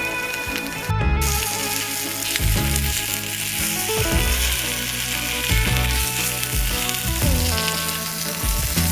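Food sizzling as it fries in a hot pan, a steady crackling hiss that starts abruptly about a second in, under background music.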